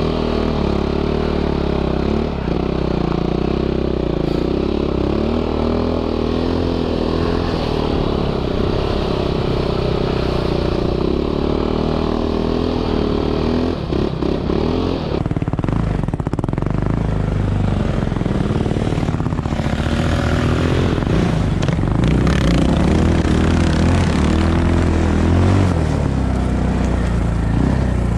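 Quad bike engine running under load through heavy snow, at steady revs for about the first half. From about halfway it turns more uneven, the revs rising and falling.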